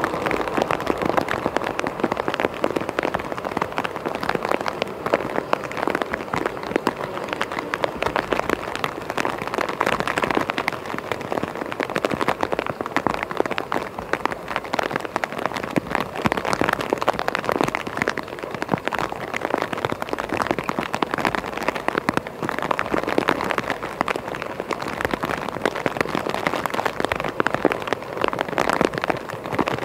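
Container wagons of a long freight train rolling past on the track, mixed with a steady, dense crackle of rain.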